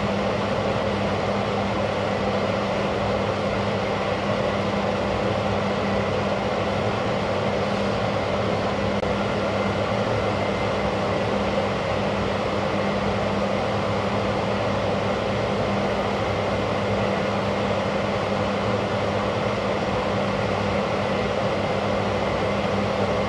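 Steady background noise: an even hiss with a low hum under it, unchanging throughout.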